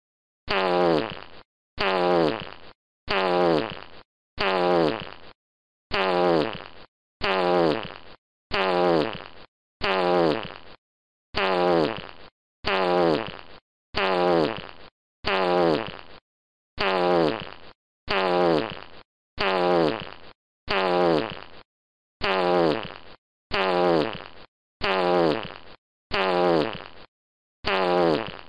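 Baby fart sound effect: the same short fart repeated about once a second, each one starting sharply and dropping in pitch as it dies away.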